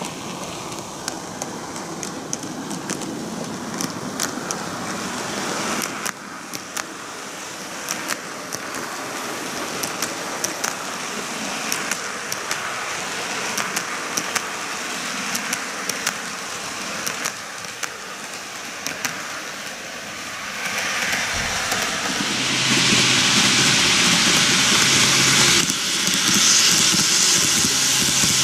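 N-gauge model trains running on plastic-roadbed track: a steady rolling whir of small wheels with frequent light clicks at the rail joints. It grows louder, with a low motor hum, in the last few seconds as the eight-car Kintetsu 80000 series Hinotori model passes close by.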